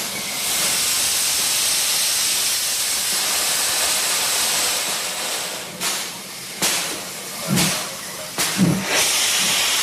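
Hungarian-built class 109 express steam locomotive (no. 109.109) venting steam in a loud, steady hiss from its cylinder drain cocks. A bit past halfway through, the hiss breaks into slow, separate chuffs about once a second as the driving wheels start to turn and the engine moves off.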